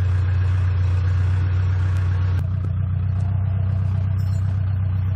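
An engine running steadily, a loud low hum; its higher sound thins a little about two and a half seconds in.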